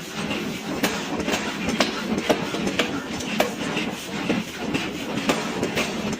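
1000 kg pneumatic forging hammer striking a hot billet over and over as it draws it square: sharp metallic blows about one to two a second over the machine's steady running noise.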